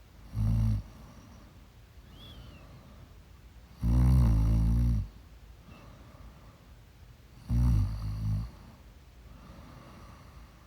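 A woman snoring: three rough snores with quieter breathing between them, the middle one the longest.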